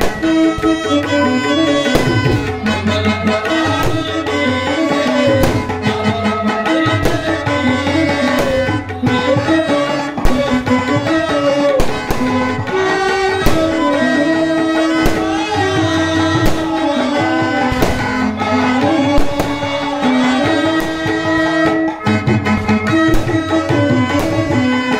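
Indian stage music: tabla drumming in a steady rhythm under a melody that moves up and down in pitch.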